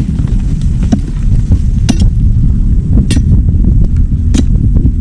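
Heavy machine engine running loudly, with a sharp knock about once a second, four in all.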